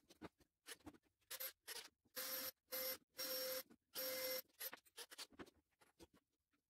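Makita cordless drill drilling into plywood in about five short bursts, each a steady motor whine, with faint handling clicks before and after.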